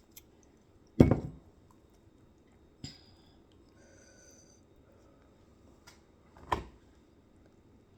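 A few separate knocks of tableware, such as a dish, glass or utensil being set down or struck. The loudest comes about a second in, a smaller one follows, then another loud one near the end, with faint ringing between them.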